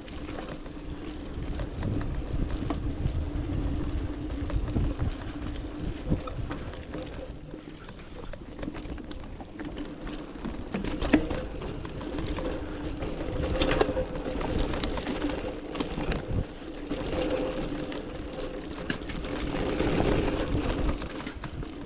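Mountain bike riding down a dirt trail: rumble and wind on the microphone, with frequent short knocks and rattles over rough ground. A steady low hum runs underneath.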